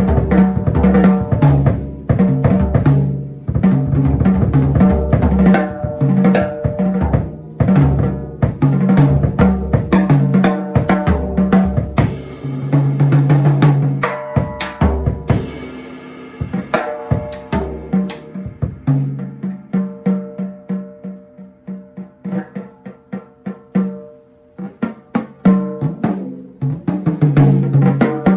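Music driven by a drum kit, with bass and pitched instruments over a steady beat; it thins out and quietens for a few seconds past the middle before the full beat returns near the end.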